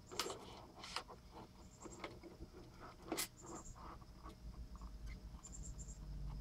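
Handling noise from a plastic fuel pump sending unit assembly: scattered clicks, taps and rubbing of plastic parts as it is turned and fitted, with sharper clicks about a quarter second in, about a second in and about three seconds in.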